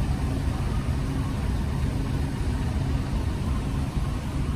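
Isuzu Giga heavy truck's diesel engine idling steadily while parked, a constant low hum.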